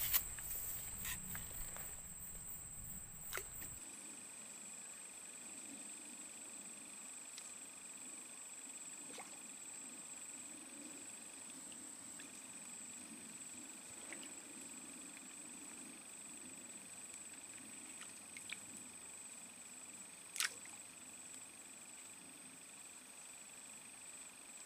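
Steady high-pitched insect drone, with a second, lower insect tone joining about four seconds in. A low rumble of handling noise runs through the first few seconds, then come a few faint clicks and one sharper click near the end.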